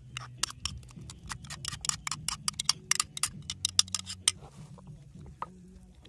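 A quick, uneven run of sharp taps, about five or six a second, that stops about four seconds in, over a low steady hum.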